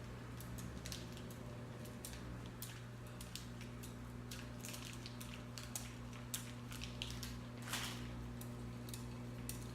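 Block of cheddar cheese being grated by hand on a metal grater: short, irregular scraping strokes, over a steady low hum.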